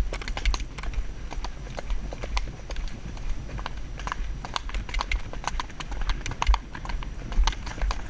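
Horse's hoofbeats on a dirt woodland track: a quick, uneven run of clicks and thuds as the horse moves on under its rider.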